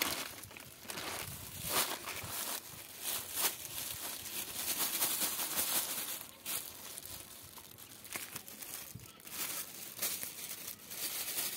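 Plastic bags crinkling and rustling in irregular handfuls as bran is shaken out of a plastic bag onto a plastic sack.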